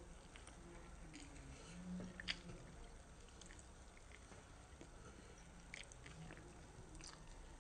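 Faint chewing and mouth sounds of a child eating a syrup-topped pancake, with a few soft clicks. The sharpest click comes a little over two seconds in.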